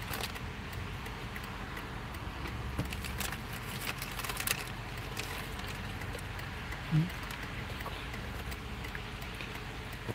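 Outdoor street ambience: a steady low rumble of road traffic, with scattered faint clicks and one short low thump about seven seconds in.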